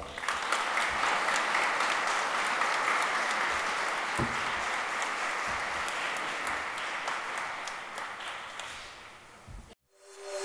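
Audience applauding, the clapping slowly weakening before it stops abruptly near the end.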